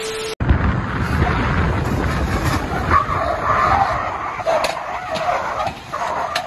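A brief test-tone beep with static, then a Jeep Gladiator pickup straining up steep slickrock: engine running hard while the tyres spin and scrabble on the rock, with a steady rumble and shifting squeal.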